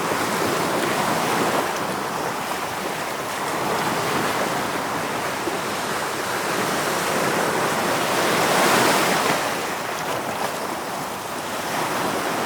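Ocean waves washing onto the shore in a steady rush that swells and ebbs, with one louder surge about eight seconds in.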